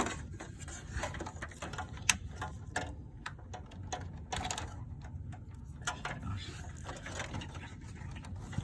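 Irregular clicking, rattling and rustling as power-supply cables and their plastic connectors are handled and pushed into place inside a desktop computer case, with one sharp click about two seconds in.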